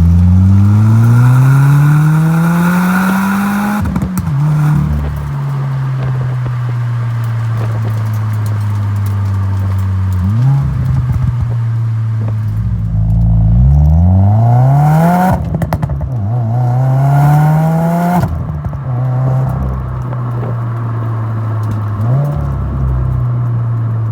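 A 2020 Subaru WRX's turbocharged 2.0-litre flat-four (FA20DIT, stock tune) through a Mishimoto cat-back exhaust. It pulls up through the revs several times, holds steady between pulls, and gives brief pops and crackles as the revs fall away.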